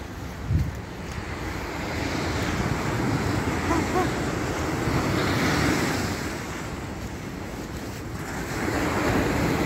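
Ocean surf breaking on a sandy beach, swelling in two long surges, with wind buffeting the microphone. A short low thump about half a second in.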